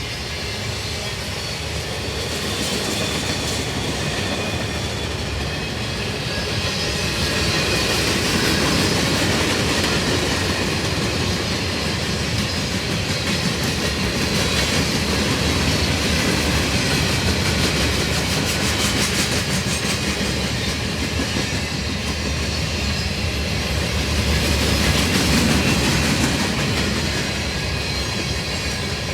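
Freight train cars rolling past, a steady rumble and rattle of steel wheels on the rails that swells and eases slightly as the cars go by.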